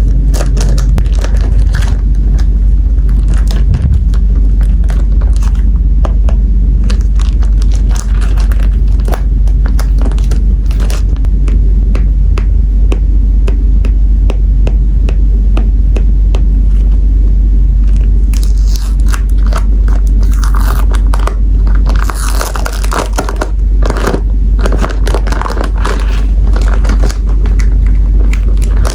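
Close-up handling of a sticker pack: taps, clicks and scrapes, with crinkling and tearing of plastic packaging in the second half. A loud, steady low rumble runs underneath.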